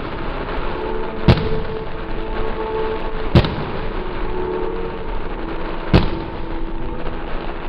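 Aerial fireworks bursting overhead: three sharp bangs a couple of seconds apart, over a steady background hiss.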